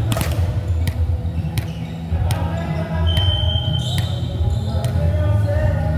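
A volleyball striking the court, a string of sharp impacts under a second apart, ringing in the hall over a steady low hum. A single high whistle tone sounds for about a second in the middle.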